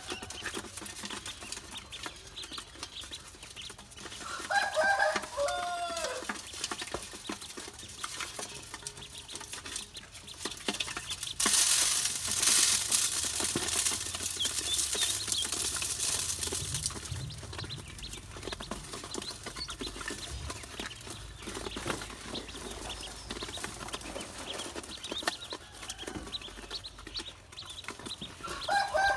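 Ducklings pecking and scrabbling in an aluminium basin, many small clicks of beaks and feet on the metal, with faint high peeps. From about 11 to 17 seconds a steady hiss of grain feed being poured into the basin. A louder falling clucking call from a grown fowl about four seconds in and again at the very end.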